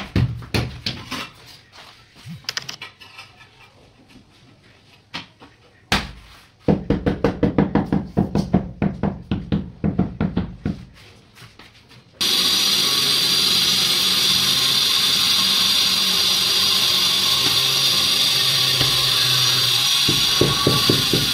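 Rapid taps of a hammer on a freshly laid ceramic floor tile, bedding it into the mortar: a run of taps, a quieter gap, then another run at about four taps a second. About twelve seconds in the sound switches abruptly to a steady hissing noise.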